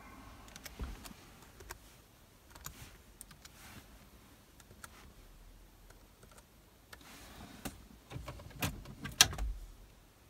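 Scattered clicks of a laptop keyboard as codes are typed into diagnostic software, with a denser clatter of louder clicks and knocks about eight to nine seconds in.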